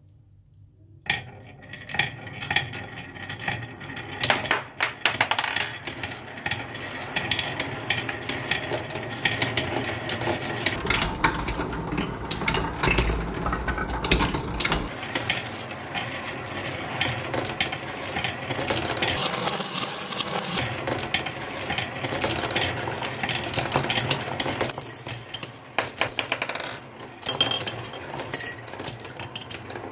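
Marbles rolling and clattering down a wooden HABA slope marble run, a dense run of clicks and rattles that starts about a second in, with a low rumble for a few seconds in the middle.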